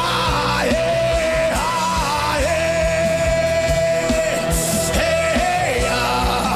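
Live worship music: drums and a steady low bass under a high melody line that holds long notes and slides up and down between them.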